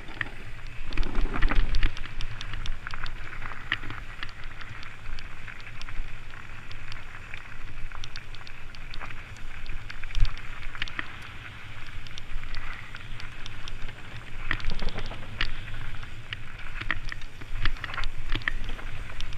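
Trek Stache 7 mountain bike ridden over rocky dirt singletrack: tyres crunching on dirt and gravel, with frequent clicks and knocks as the bike and camera mount rattle over rocks, under a steady low rumble of wind on the microphone. The heaviest jolts come about a second and a half in.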